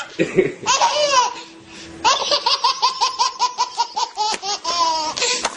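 High-pitched laughter: a squeal or two at first, then from about two seconds in a long run of quick, even laughs, about six a second.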